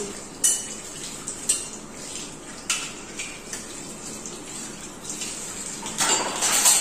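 Tap water running into a stainless steel sink while dishes are washed by hand, with scattered clinks of glasses and crockery knocking together. The water splashes louder near the end as glasses are rinsed under the tap.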